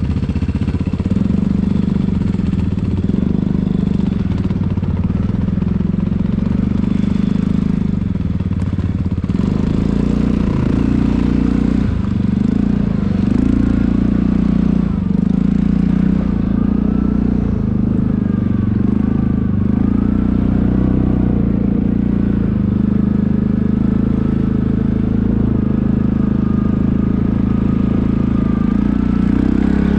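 Quad bike (ATV) engine running steadily as the quad is ridden, the revs rising and easing off every second or two.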